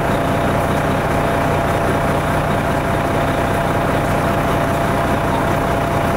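A fire engine's heavy engine running steadily, with a thin steady whine above it.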